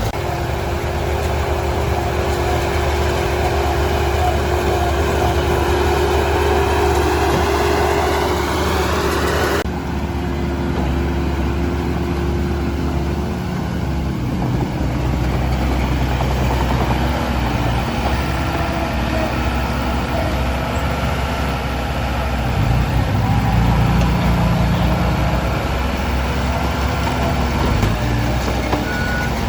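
Heavy diesel engine of earthmoving machinery running steadily. The sound changes abruptly about ten seconds in.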